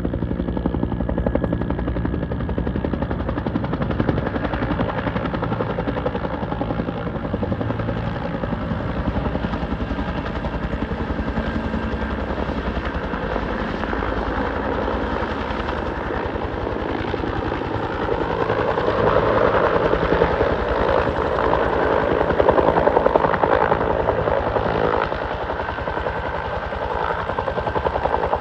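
Helicopter flying low overhead, its rotor beating in a fast, steady chop over the engine's whine. It grows louder about two-thirds of the way through as it passes closer, then eases off a few seconds later.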